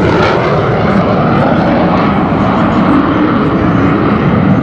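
F/A-18 Hornet jet engines: loud, steady jet noise from the aircraft in flight.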